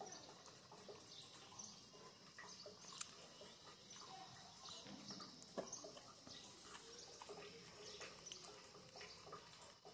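Near silence with faint, scattered soft clicks, two a little louder about three and five and a half seconds in: a dog chewing a piece of bread.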